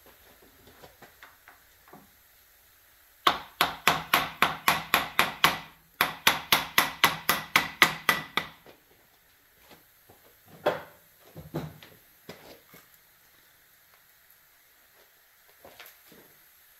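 Two quick runs of hammer blows, about four a second and ten in each run, on the gland of a John Deere hydraulic cylinder, driving the gland back into the barrel. A few single knocks follow.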